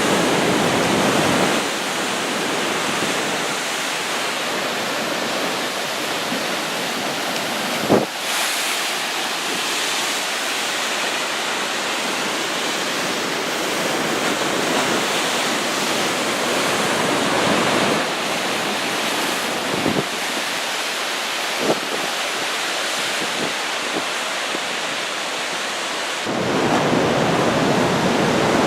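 Heavy surf from a typhoon-stirred sea breaking and washing on the beach, a constant roar that swells near the start and again near the end. Wind on the microphone, with a few brief thumps.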